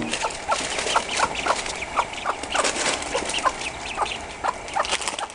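Young ducklings peeping: short, repeated peeps, about two or three a second.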